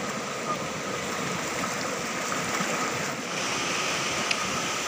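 Fast-flowing floodwater rushing steadily past.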